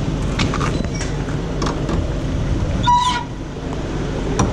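Steady low rumble of a refrigerated box van running, with sharp clicks and knocks as its rear cargo door is unlatched and opened, and a short high squeal about three seconds in.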